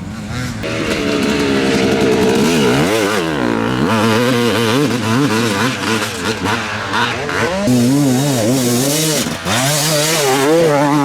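Enduro motorcycle engines revving hard, their pitch rising and falling quickly with the throttle, getting louder about half a second in.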